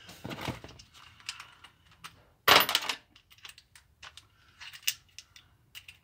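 Small metal hand tools clinking as a small socket is handled and fitted onto a ratchet, with scattered light clicks and one louder metallic clatter about two and a half seconds in.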